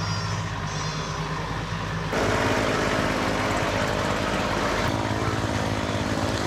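Compact John Deere tractor engine running steadily while it carries a load on its front loader. It is a low, even hum that gets louder about two seconds in.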